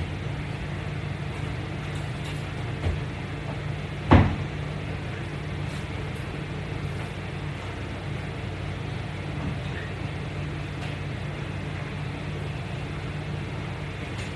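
A steady low hum, with a single sharp knock about four seconds in and a fainter one a second before it.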